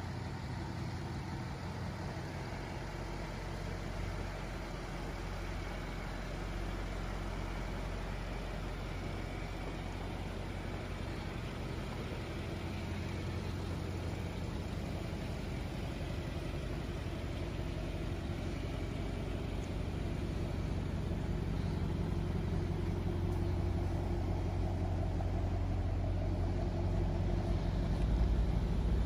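Mercedes-AMG S63 Coupé's twin-turbo V8 idling steadily, a low even hum that grows gradually louder over the second half.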